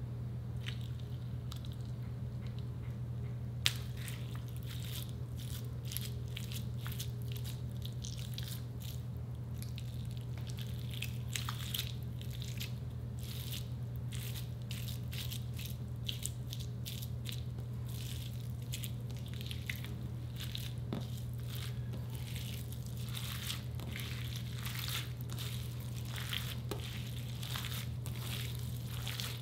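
Clear slime mixed with crushed orbeez (water beads) being squeezed and worked by hand, giving many small crackles and squishes. They start with a sharp click a few seconds in, over a steady low hum.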